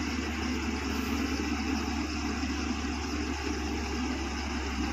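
Diesel engines of a Tata Hitachi excavator and a 10-wheel dump truck running steadily, with no sharp changes, as the excavator's bucket pushes the mud-bogged truck from behind.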